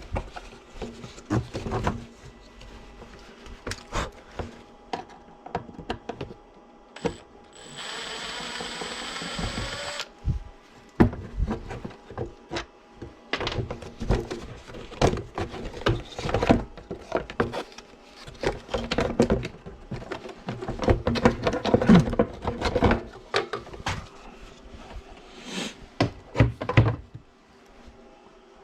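Tools working on metal parts: a string of irregular knocks, clinks and scrapes, with one steady hiss or whir lasting about two seconds, starting about eight seconds in.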